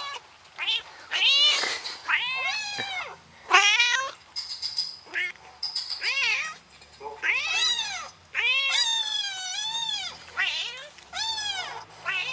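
A rapid series of high-pitched cat meows, about a dozen, each rising then falling in pitch.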